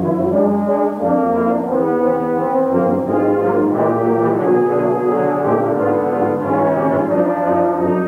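A brass band playing in full harmony, trombones and tenor horns or euphoniums sounding held chords that change every second or so.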